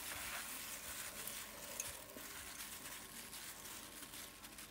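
Faint wet rustling and squishing of a gloved hand mixing salted, vinegar-cured carp pieces with onion and ground spices in a steel pot.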